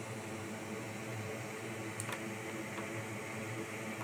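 Steady fan-like hiss with a low hum from the repair bench, with a few faint light clicks about two seconds in.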